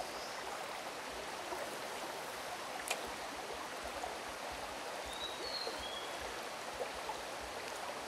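Steady rushing of a mountain stream's water flowing over rocks, with a single faint click about three seconds in.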